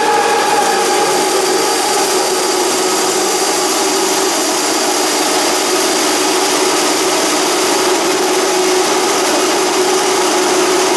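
Ficep Excalibur CNC beam drilling line machining a steel beam: a steady, loud cutting noise with a held mid-pitched tone, the spindle working under load.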